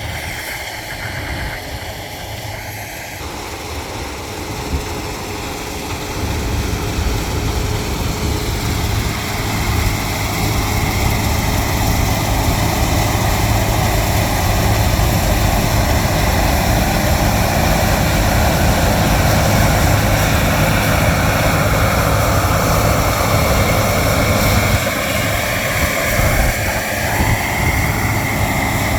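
Heavy harvest machinery running steadily with a whir over the engine note, getting louder about six seconds in.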